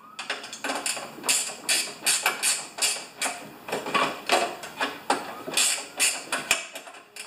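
Ratcheting wrench turning a 10 mm cover bolt on a snow thrower's housing: a run of quick metallic clicks, about three a second, unevenly spaced, as the handle is swung back and forth.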